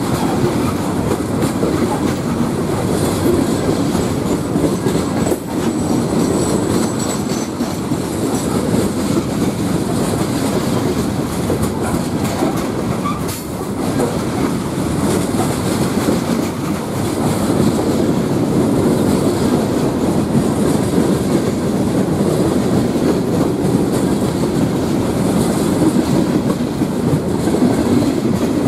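Loaded coke hopper cars of a freight train rolling past close by: a steady rumble of steel wheels on rail with clicking over the rail joints. A faint high wheel squeal sounds for a few seconds near the start.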